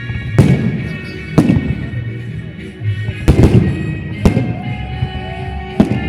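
Fireworks salute going off: about six sharp bangs at uneven intervals, two of them in quick succession a little past halfway, each trailing off in echo. Music plays underneath.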